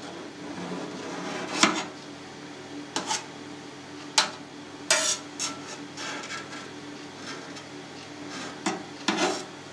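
Kitchen knife blade clicking and scraping against a stainless steel pan while cutting milk curd into cubes: a handful of sharp clicks spread apart, over a faint steady hum.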